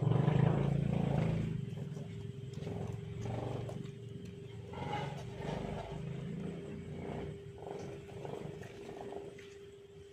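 Jamunapari goats calling with a run of low bleats about once a second, loudest at the start and fading toward the end.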